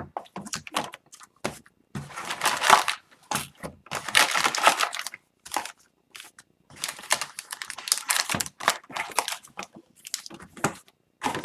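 Plastic wrapping and packaging crinkling and tearing in irregular bursts with short pauses as a sealed box of trading cards is opened.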